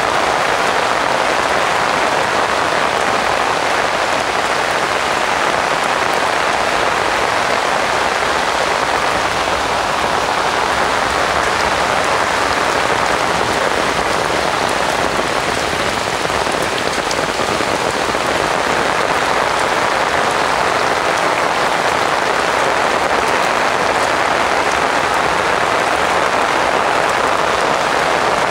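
Heavy rain pouring steadily, a dense even hiss of a tropical downpour with no let-up.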